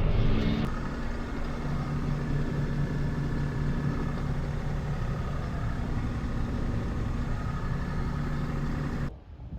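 A farm machine's engine running steadily with a constant drone, ending abruptly near the end.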